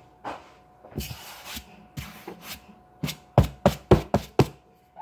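Sharp knocks and taps on a wooden tabletop close to the microphone: a few scattered ones, then a quick run of about six loud knocks roughly a third of a second apart in the second half.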